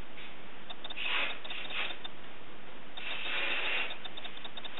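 Aerosol hairspray sprayed onto hair in three hissing bursts, two short ones and then a longer one of about a second.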